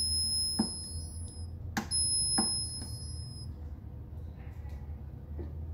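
Intensity buttons on an ACCO computerized interferential therapy (IFT) unit pressed, each click followed by a long, high-pitched electronic beep of about one and a half seconds, twice in a row. A low steady hum runs underneath.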